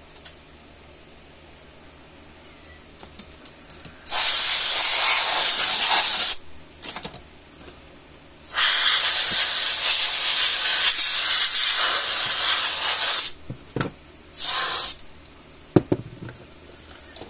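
An aerosol can hissing in three bursts as it is sprayed onto a fence energizer's circuit board. A burst of about two seconds comes four seconds in, then a long burst of about five seconds, then a brief one.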